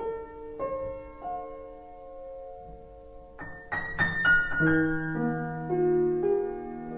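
Background piano music: slow, sustained notes struck one at a time, growing fuller and louder with a cluster of chords about four seconds in.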